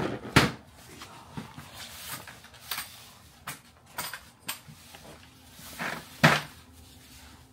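Plastic wrap and cardboard packaging being handled, rustling, with irregular sharp knocks and thumps; the loudest comes just after the start and again about six seconds in.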